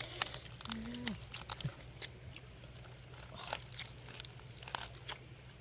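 Eating sounds: scattered small clicks and crunches of chewing, with a short voiced hum about a second in.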